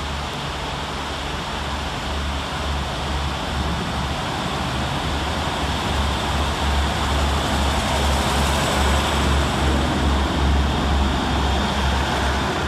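Class 150 Sprinter diesel multiple unit pulling away and accelerating past, its Cummins underfloor diesel engines working hard. A low pulsing throb grows louder as the coaches go by.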